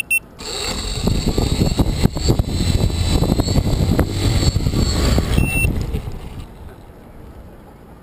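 Two quick electronic beeps, then a T580 quadcopter's electric motors and propellers spin up and run with a steady buzzing whine for about six seconds before winding down. Another single beep sounds shortly before the motors stop.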